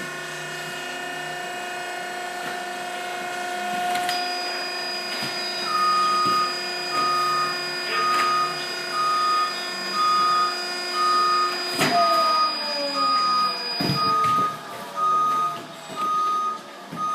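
Industrial machinery running with a steady hum. From about six seconds in, an electronic warning beeper sounds about once a second, and a few metallic clanks come in between.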